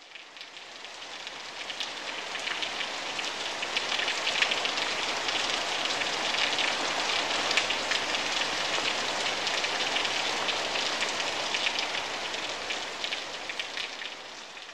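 Rain falling on a surface: a steady patter of dense fine drops, fading in at the start and fading out near the end.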